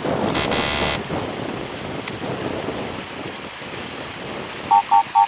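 Steady outdoor noise of wind and water. About half a second in there is a brief, high whirring burst lasting about half a second, and near the end three short electronic beeps.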